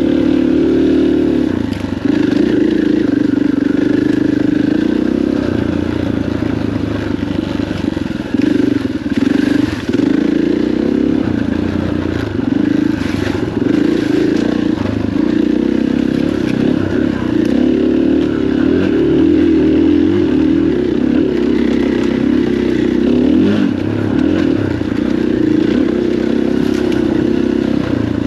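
KTM enduro dirt bike's engine running along a rough dirt trail, its note rising and falling with the throttle, with clatter and knocks from the bike over the ground. The clutch is hot and dragging a little, so the bike is not accelerating well.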